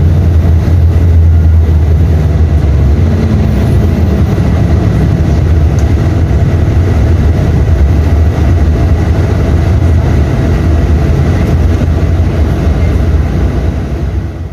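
Mercedes-Benz OM 926 LA six-cylinder inline diesel engine of an O-500U BlueTec 5 city bus running with a steady deep rumble, fading out near the end.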